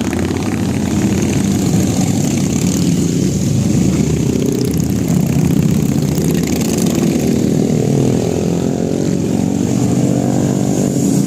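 A vehicle engine running loudly close by, its pitch rising slightly over the last few seconds as it revs.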